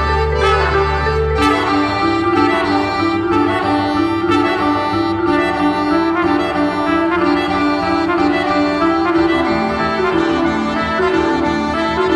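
Button accordion and a woman's singing voice performing together. A held low bass chord on the accordion stops about a second and a half in, and a slow, stepping melody line carries on above the accordion's chords.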